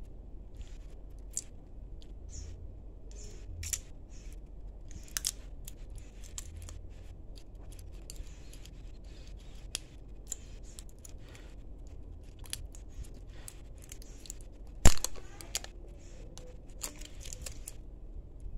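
A craft knife scraping and cutting the plastic shrink wrap off a cylindrical battery cell: a string of small scratches, clicks and crinkles of blade and plastic, with one much louder sharp click late on that rings briefly.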